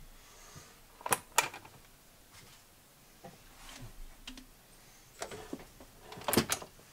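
Sparse sharp clicks and taps: a loud pair about a second in, a few fainter ones, then another loud pair near the end.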